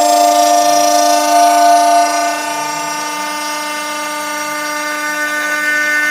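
Minimo 0609TT desktop CNC router milling plywood: a steady, high spindle whine mixed with the tones of the stepper motors driving the axes. About two seconds in, one of the tones fades away and the sound gets slightly quieter.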